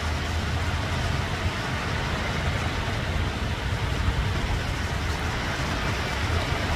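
Ocean surf: waves breaking and washing in as a continuous rushing noise with a deep rumble underneath.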